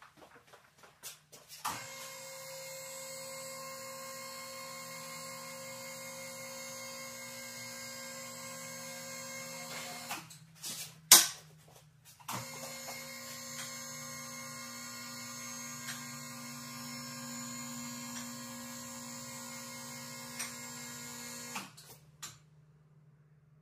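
Electric lift motor humming steadily as it raises a side-by-side on a scissor lift, in two runs of about eight to nine seconds each. Between the runs comes one sharp click, the loudest sound.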